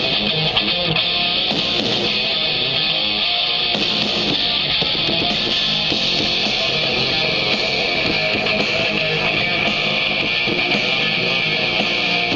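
Rock music with distorted electric guitar playing through a pair of 2-inch waterproof metal-housed motorcycle handlebar speakers. The sound is steady and thin, with most of it in the upper midrange and little bass.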